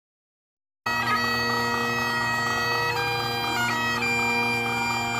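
Bagpipes playing a melody with long held notes over their steady drones, cutting in abruptly about a second in after silence.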